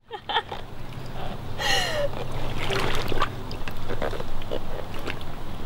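Pond water sloshing and splashing around rubber waders, in small irregular splashes, with one short falling squeal about two seconds in.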